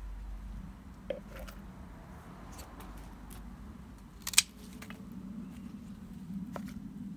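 Hand scissors clicking shut a few times: short sharp snips, the loudest about four seconds in, over a low steady background rumble.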